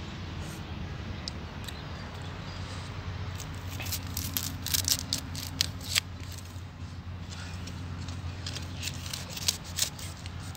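A small knife cutting into a raw cauliflower head: a series of crisp snaps and cracks as florets are cut off, in a cluster around the middle and again near the end, over a steady low hum.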